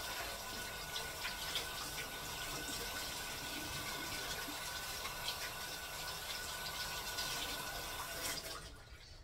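Kitchen tap running, water splashing steadily into the sink, shut off near the end.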